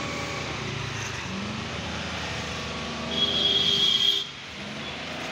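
Street traffic with motor vehicle engines running and changing pitch as they pass. Near the middle a loud, high-pitched steady tone sounds for about a second.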